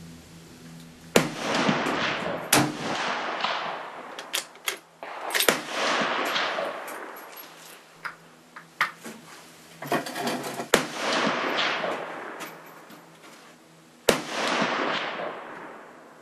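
Rifle shots at uneven spacing: a Japanese Type 99 Arisaka bolt-action rifle in 7.7 mm Arisaka and other shooters' guns. Each sharp crack has a long echoing tail. The loudest shots come about a second in and near the end.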